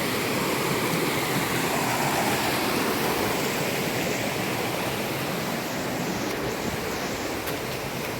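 Steady rush of flowing water from a nearby waterfall stream.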